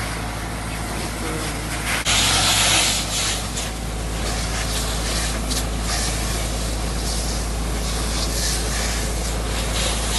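A burning car hissing and rushing steadily. The rush grows louder for about two seconds, starting about two seconds in, and short cracks come through it after that.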